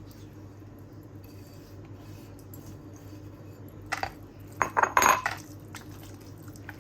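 Kitchen utensils and dishes clinking and clattering: one short clatter about four seconds in, then a busier run of clinks about a second later, over a steady low hum.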